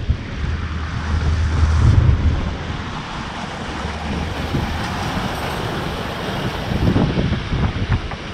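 Wind buffeting the microphone over the rush of water churning in a sailboat's wake as it runs fast through open-sea waves, with the wind rumble swelling about a second in and again near the end.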